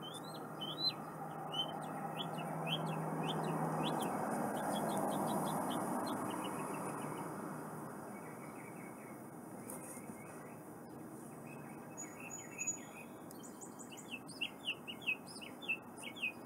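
Small birds chirping in quick runs of short, high chirps throughout, over a soft rushing noise that swells and fades over the first eight seconds.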